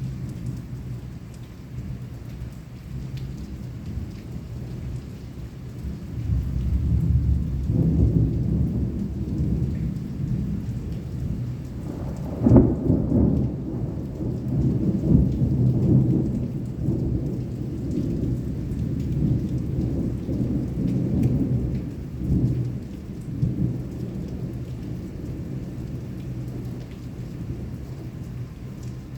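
Heavy rain falling through a thunderstorm, with thunder rumbling throughout. The rumble swells about six seconds in, and a sharp thunderclap comes near the middle, followed by long rolling rumbles that slowly ease off.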